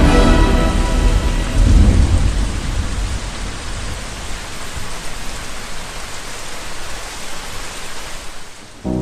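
Thunderstorm: heavy rain hissing steadily, with rumbles of thunder in the first two seconds. The rain fades gradually and cuts off suddenly near the end.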